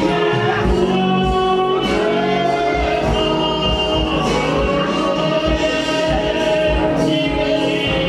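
Gospel worship music: sung voices holding long notes over instruments and a steady, regular drum beat.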